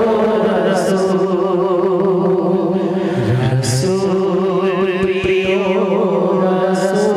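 Male voices singing a Bangla Islamic gojol (devotional song) through microphones: a wavering, ornamented melody over a steady held drone note.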